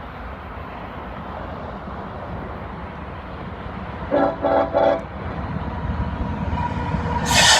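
Air horn of a BNSF GE ES44AC locomotive giving three short blasts about four seconds in, over the rumble of an approaching loaded coal train that grows steadily louder. A loud burst of noise comes near the end as the train draws close.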